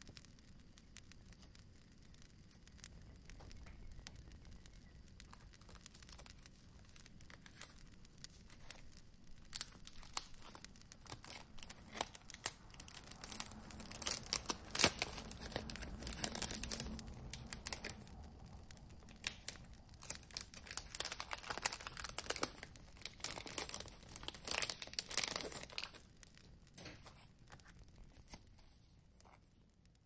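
Packaging being crinkled and torn open by hand, with irregular rustling and sharp crackles that are busiest in the middle stretch.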